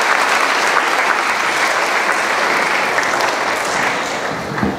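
Audience applauding, a steady round of clapping that thins out near the end.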